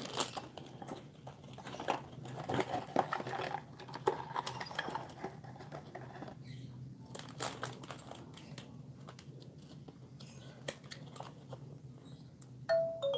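Clear plastic bags of building-block toy parts crinkling and rustling as they are handled, with irregular small clicks of plastic pieces and card. Near the end a short run of electronic notes steps downward in pitch.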